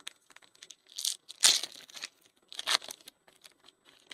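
Foil wrapper of a Panini Certified Football hobby pack being torn open and crinkled, in a few short rustling bursts, the loudest about one and a half seconds in, with small clicks between.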